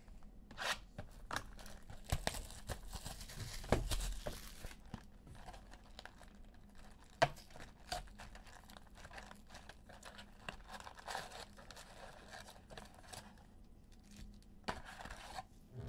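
Wrapping on a Panini Contenders Football card box torn and crinkled off, with a crackling tear about two to five seconds in, followed by scattered rustles and clicks of the cardboard box being opened and the foil packs handled.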